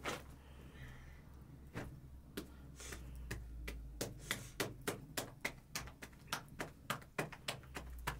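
Soft bread dough slapped by hand from palm to palm to stretch it into a thin flatbread: a few scattered pats, then a quick, even run of about three slaps a second from about four seconds in.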